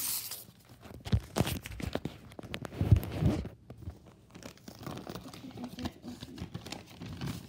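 Rustling and scraping handling noise with scattered knocks and clicks as the recording device is moved and rubbed against something close to the microphone, loudest in a brief cluster about three seconds in.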